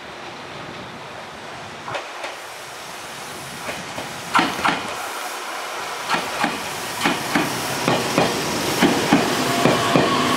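Meitetsu electric train running past on the adjacent track: its wheels clack over the rail joints, mostly in pairs, coming faster and louder as the train draws level, over a steady rolling rumble.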